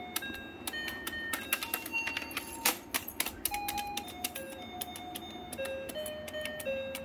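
Bunny-shaped electronic toy keyboard sounding a string of short beeping notes that step up and down in pitch as its plastic keys are pressed, with many sharp clicks of the keys.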